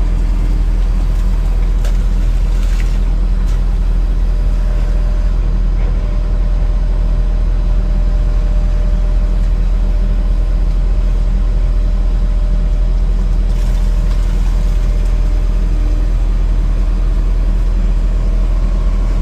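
Heavy earthmoving machinery's diesel engine running steadily, a loud, even low-pitched drone, with a few faint knocks about two to three seconds in and again near the middle.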